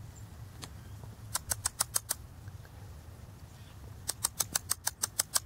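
Dachshund sniffing with its nose buried in snow: quick runs of sharp snuffles, about seven a second, one short run just after a second in and a longer one near the end.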